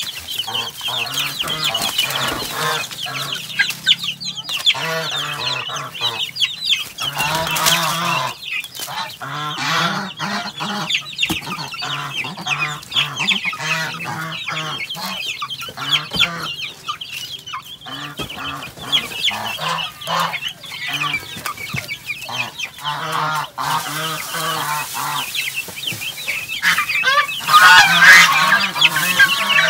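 A flock of young native × Rhode Island Red cross chicks peeping continuously with many short high calls, mixed with lower clucking. The calling gets loudest near the end.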